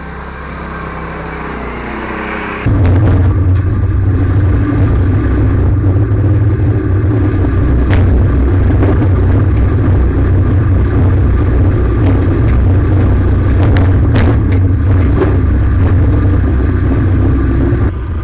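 Predator 212 single-cylinder lawnmower-type engine in a VW Baja Bug revving up, its pitch rising, then a loud, steady low rumble as the car drives off road, with a few sharp knocks.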